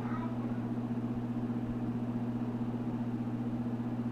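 A steady low hum, two constant low tones without any change in pitch or level.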